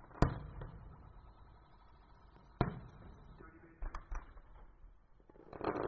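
Distant fireworks shells bursting, each bang trailing off in a low rumble: a sharp bang just after the start, another about two and a half seconds in, and fainter pops around four seconds. Music comes in near the end.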